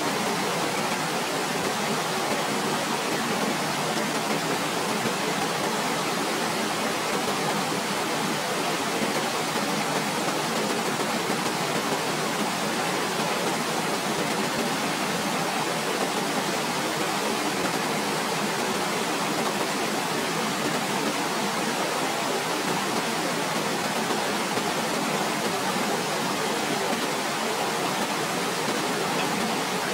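Waterfall: a steady, even rush of falling water that does not change.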